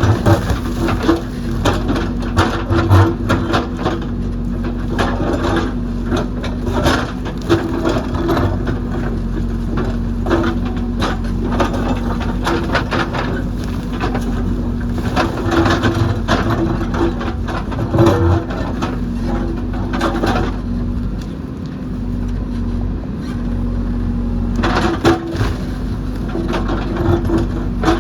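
JCB backhoe loader's diesel engine running steadily, with frequent sharp cracks and knocks of rock and soil crunching as the machine digs.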